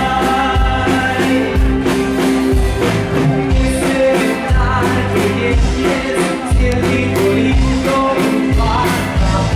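Live band music with singing, over a steady beat with a low bass and drum thump about once a second.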